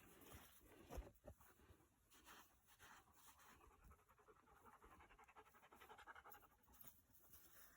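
Faint, quick, rhythmic panting of a dog, with a single soft knock about a second in.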